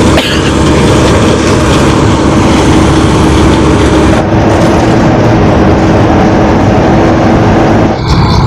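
John Deere combine harvester running loud and steady, with a steady hum; the sound changes about four seconds in and again near the end.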